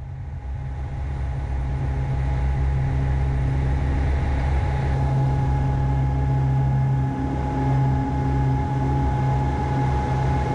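Cockpit noise of a CT-156 Harvard II trainer's PT6A turboprop engine: a steady deep drone with a thin high whine over it. It fades in over the first couple of seconds, then holds steady.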